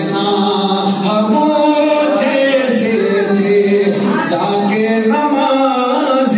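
A man singing an Islamic devotional song (naat) unaccompanied, in long held notes that bend up and down in pitch.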